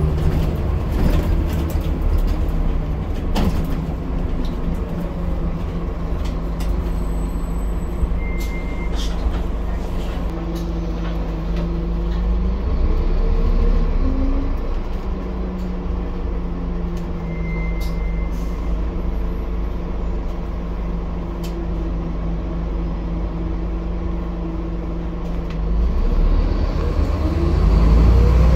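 Scania N230UD double-decker bus's diesel engine and drivetrain running under way, a low steady rumble whose pitch climbs and then drops back a few times as the bus accelerates and changes gear, with light rattles through it.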